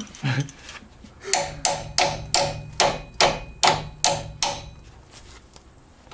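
Hammer blows on metal, about ten sharp ringing strikes at roughly three a second: knocking at a seized stabilizer-link nut that will not come undone.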